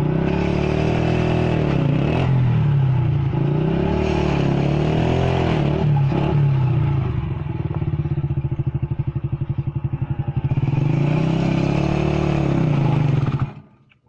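Motorcycle engine revving again and again, its pitch rising and falling. About seven seconds in it drops to a slow, even putter, revs up once more, and cuts off near the end.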